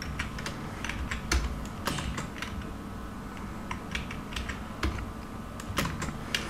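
Computer keyboard being typed on: irregular single key clicks and short runs of keystrokes as a line of code is edited, over a faint low hum.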